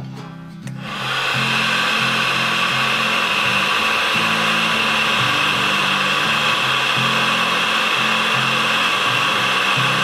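Electric heat gun blowing steadily, held to a wire joint to shrink heat-shrink tubing; it switches on about a second in and runs until it is shut off at the end.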